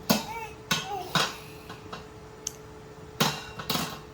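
A few sharp knocks or clatters, three in the first second and a half and two more near the end, like hard objects bumping.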